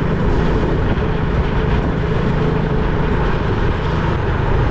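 Honda XRM 125 motorcycle's single-cylinder four-stroke engine running steadily while riding at road speed, mixed with a dense low rumble of wind on the microphone.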